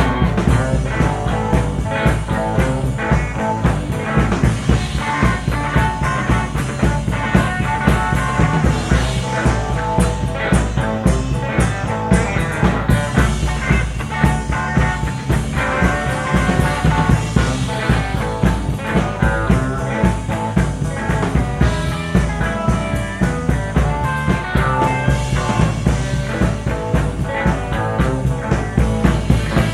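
Live blues-rock band playing an instrumental passage with no singing: electric guitar over bass and drum kit, with a steady beat, heard in a soundboard recording.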